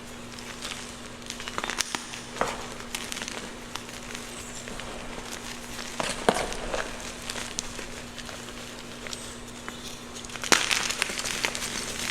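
Gym chalk being crushed and crumbled, crunching and crackling in irregular bursts, loudest about two seconds in, around six seconds and near the end. A faint steady hum lies underneath.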